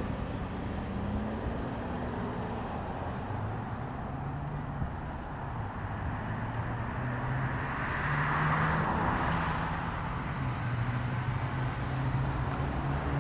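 Engine running steadily with a low hum, and a swell of noise about eight seconds in that fades again, like a vehicle passing.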